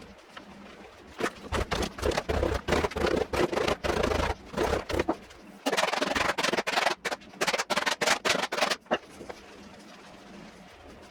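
Mallet pounding the pocket of a new leather softball glove during break-in, rapid repeated strikes in two runs with a short pause between them.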